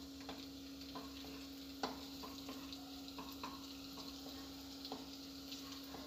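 Finely chopped ginger and garlic sizzling faintly in a little hot oil in a nonstick kadai, sautéed to cook off their raw smell. A wooden spatula stirs them, scraping and tapping the pan in light, irregular knocks; the loudest knock comes about two seconds in.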